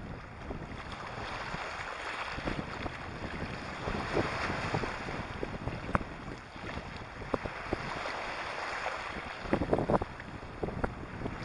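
Small waves washing in over a pebbly shore, swelling and easing, with sharp clicks of stones about halfway through and a cluster near the end. Wind buffets the microphone.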